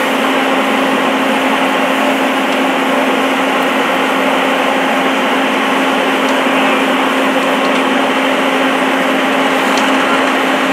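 A steady machine drone with a constant low hum, unchanging throughout, with a few faint pops.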